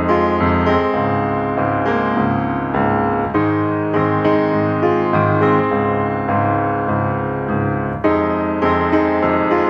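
Background piano music, gentle notes struck in a slow steady pattern.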